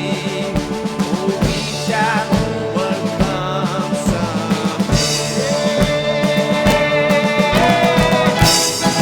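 Live instrumental music: a keyboard melody with gliding notes over a steady, fast drum-kit beat.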